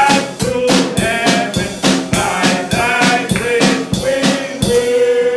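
Live church band music, a drum kit keeping a steady beat with bass drum and snare under pitched instruments.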